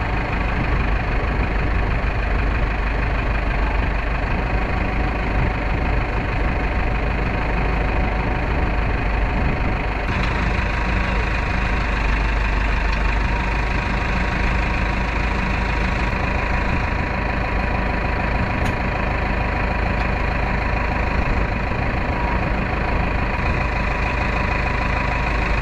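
Tractor engine running steadily at a low, even idle.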